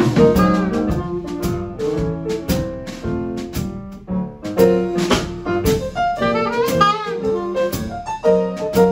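Live jazz: a saxophone plays a melodic line over grand piano chords and a drum kit with cymbals.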